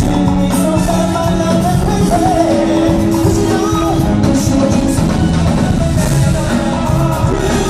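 A live band playing a song at full volume, with a voice singing over it.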